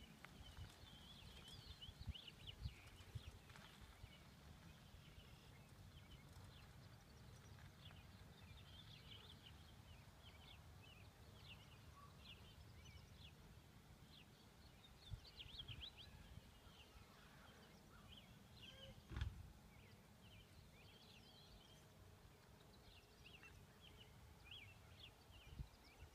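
Faint rural ambience: small birds chirping in short, repeated calls over a low steady rumble. One brief thump about three-quarters of the way through.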